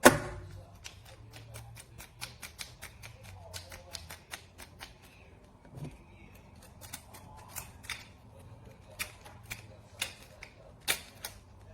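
Metal door-lever and latch hardware being handled: a run of sharp, irregular clicks and light knocks, several a second, starting with a loud knock.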